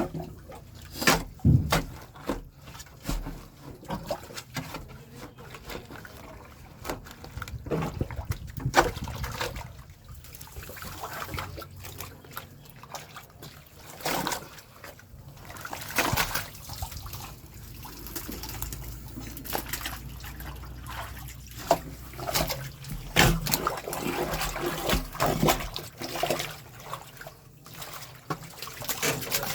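Water trickling and splashing in a drain, broken by frequent sharp knocks and splashes at irregular intervals.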